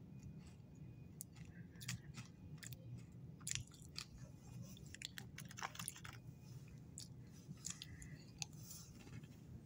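A person chewing and crunching an Oreo sandwich cookie, with irregular crisp crunches in small clusters over a steady low hum.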